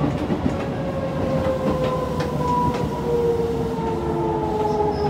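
Shin-Keisei 8800 series electric train heard from inside the car as it slows into a station: the traction motor and inverter whine falls steadily in pitch over a constant rolling rumble, with a few sharp clicks from the wheels.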